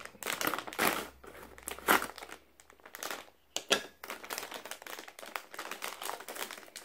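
A foil-lined plastic chip bag crinkling as it is slit with a knife and pulled open by hand, in uneven bursts with a few louder crackles about one, two and nearly four seconds in.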